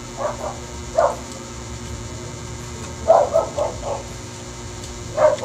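A dog barking in short, separate barks: two quick ones at the start, one about a second in, a run of four around three seconds in, and one more near the end.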